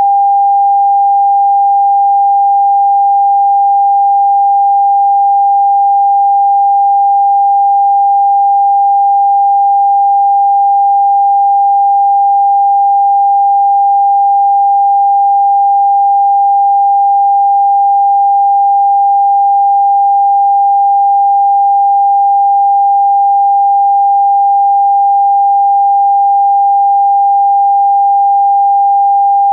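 A single steady pure sine tone a little under 1 kHz, electronically generated and played as a Rife frequency meant against cough and congestion, holding one unchanging pitch and level throughout.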